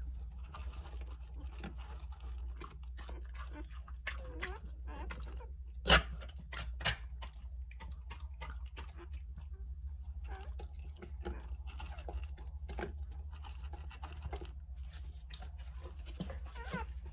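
Three-day-old Jindo puppies squeaking and whimpering faintly as they shuffle on a quilt, over a steady low hum. A sharp knock sounds about six seconds in.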